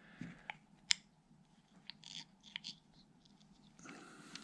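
Faint clicks and taps of small metal parts: a socket being set against the new wiper seal to press it into the cab latch housing, with one sharp click about a second in and a few lighter ones later.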